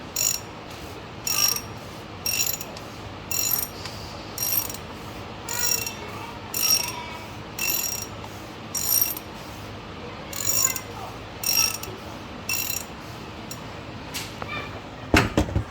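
Socket ratchet clicking in repeated short strokes, about one a second, unscrewing the top-mounted oil filter housing cap on a Ford F-350. A sharper clatter comes near the end.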